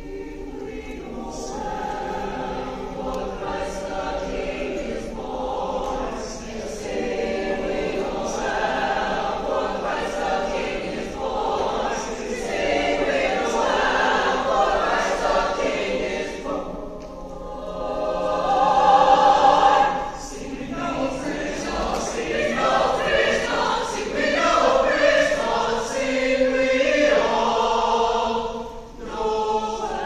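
A large choir singing a Christmas choral piece in concert, swelling to its loudest about two-thirds of the way through, with short dips in between.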